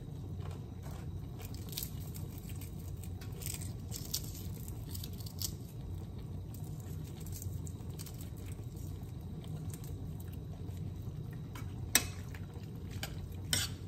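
Crisp cooked bacon crumbled by hand into a skillet of pasta, with faint scattered crunching and crackling over a steady low hum. One sharp click near the end.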